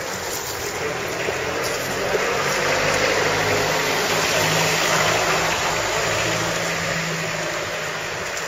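A motor vehicle's engine running close by on the street, a steady hum that grows somewhat louder through the middle, over general outdoor noise.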